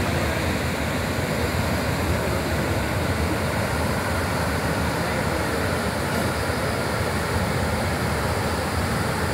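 Brahmaputra floodwater rushing through a breached embankment: a steady, loud, low rush of turbulent water.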